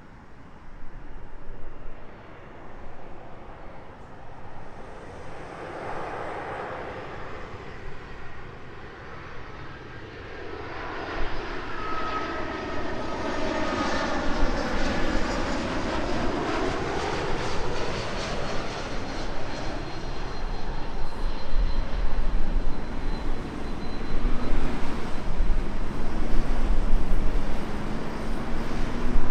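Jet airliner passing low on landing, its engine whine sweeping down in pitch as it goes by, followed by a deep rumble that grows louder toward the end.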